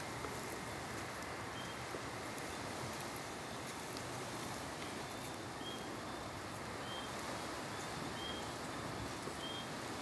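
Tropical night chorus: a short high chirp repeating about once a second over a steady hiss.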